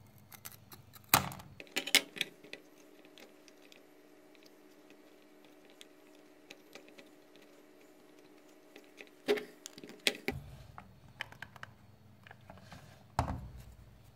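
Wooden ice-cream sticks and a hot glue gun handled on a tabletop: scattered light wooden clicks and taps, the sharpest about a second and two seconds in, with more near the end.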